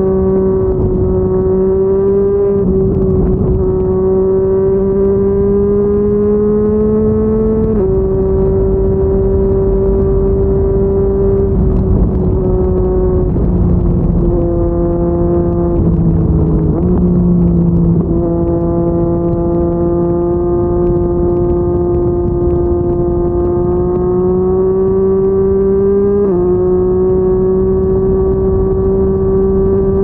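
Yamaha MT-09's three-cylinder engine through a Yoshimura R55 slip-on exhaust, running at highway speed with a steady drone. Its pitch steps down a few times in the middle and back up near the end as the throttle changes, over wind and road noise.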